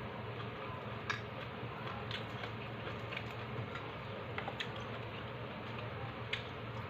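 Mouth-close crunches of crispy chicken chicharon being chewed: a few short, sharp, irregular crackles over a steady low background hum.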